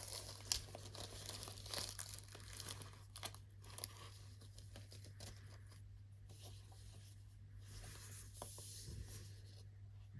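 Apple Pencil 2 packaging being torn open and crinkled by hand: irregular crackling of paper or plastic with several sharp clicks, stopping shortly before the end.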